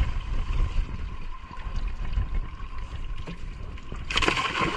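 A hand scoop net of trapped fish is tipped into a boat's hold, and the fish and water splash loudly for about half a second near the end. Before the splash there is a steady low rumble.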